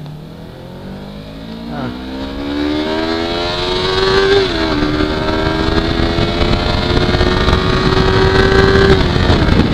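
Yamaha R3's 321 cc parallel-twin engine accelerating hard, the revs climbing for about four and a half seconds. After a quick upshift it pulls on steadily at high revs.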